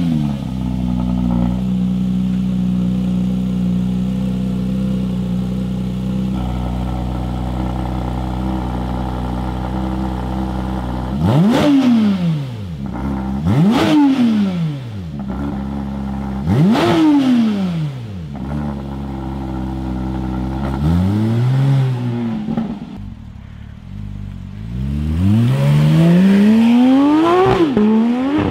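Porsche 992 GT3's 4.0-litre flat-six through an Fi Exhaust system, idling steadily, then three sharp free revs that fall quickly back to idle and a smaller blip. Near the end the car pulls away, the engine note climbing hard with a short dip at a gear change.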